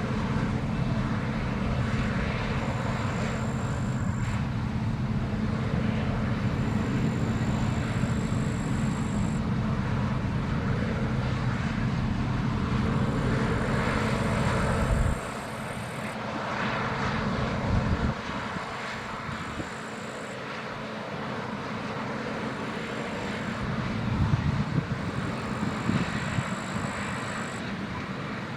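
Claas Lexion 670 combine harvester running, a steady machine drone. About halfway through the deep part of the drone drops away suddenly, and it builds up again later on.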